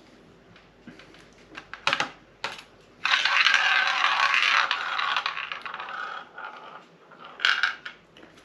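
Ball spinning in a toy shot-glass roulette wheel. After a couple of clicks, the ball rattles round the rim for about four seconds, slowing and fading, then settles with a few clicks near the end.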